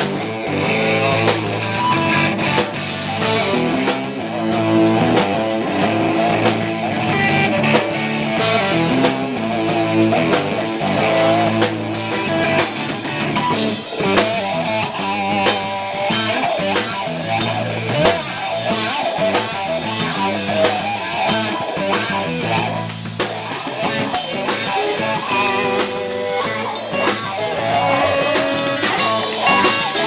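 Live band playing an instrumental passage: electric guitar and bass guitar over a steady drum beat.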